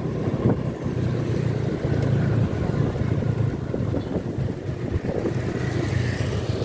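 Steady low engine and road rumble heard from inside a moving car.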